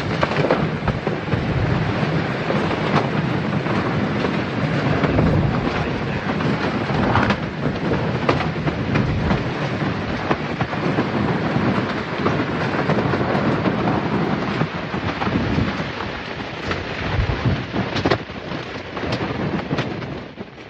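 Storm noise: a steady rush of wind and rain with low rumbling and a few sharp knocks, fading out near the end.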